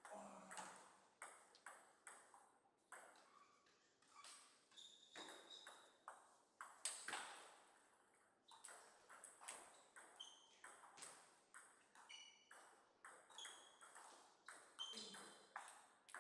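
Table tennis ball clicking back and forth off rackets and table in rallies, irregular sharp taps, with short pauses between points.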